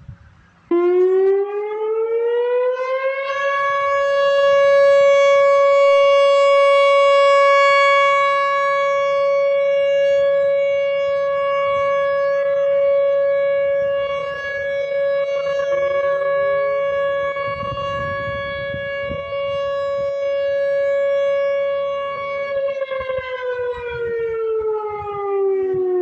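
Whelen WPS-4004 electronic outdoor warning siren sounding a steady alert tone during a test: it winds up in pitch over the first few seconds, holds one steady pitch for about twenty seconds, then winds down near the end. Its loudness swells and fades slowly as the rotating horn head sweeps past.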